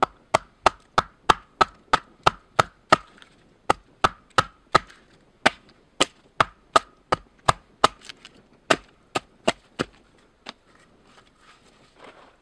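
Axe hewing a birch log: quick, steady blows of the blade biting into the wood, about three a second with a couple of short pauses. The blows stop about ten seconds in, leaving a few faint knocks.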